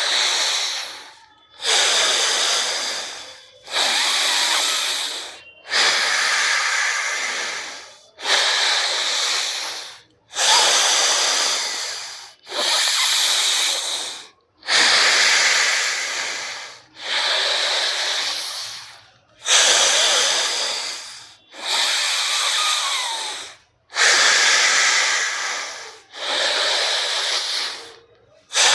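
A person doing anulom vilom (alternate-nostril breathing) pranayama: deep breaths drawn in and pushed out through one nostril at a time, about one every two seconds. Each breath starts strong and fades, with a brief pause before the next.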